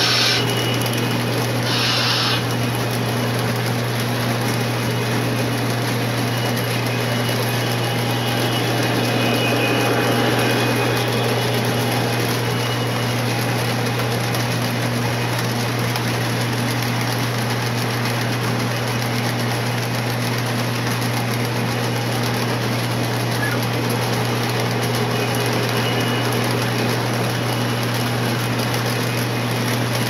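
Lionel O-gauge model trains running past on the layout track: a steady mechanical running sound of motors and wheels over a constant low hum, with two short hisses near the start.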